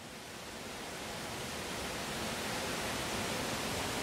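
Steady rushing background noise with no distinct events, fading in and growing gradually louder.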